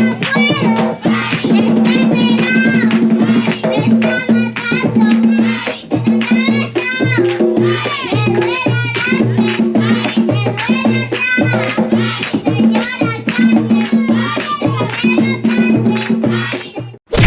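Music with a steady pulsing beat, percussion and a rattle-like shaker, cutting off sharply just before the end.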